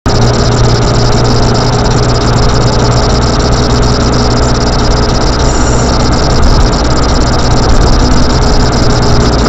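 A car's engine and tyre noise while driving, heard through a dashcam's built-in microphone from inside the cabin: a loud, steady drone with a low hum that starts suddenly.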